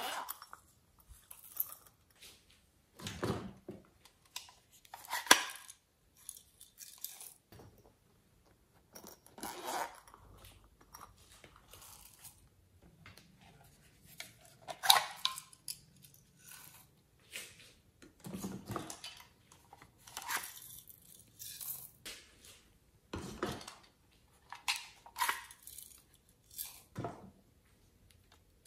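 Hands handling small novelty items, a silicone coin purse and a plastic rainbow-shaped pencil sharpener, making scattered clicks, taps and short scraping rustles every second or two.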